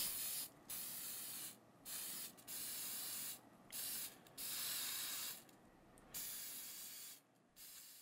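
Aerosol can of acrylic clear coat spraying in a series of short hissing bursts, about seven of them, each around half a second to a second long.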